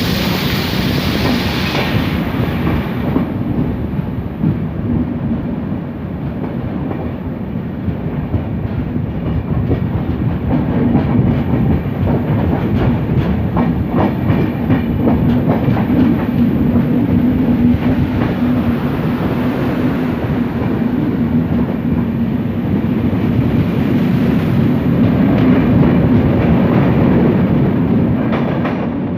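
A passenger train under way, wheels running over the rails: a steady rumble and hum with rhythmic clickety-clack clicks from the rail joints. A high hiss fades out about two seconds in.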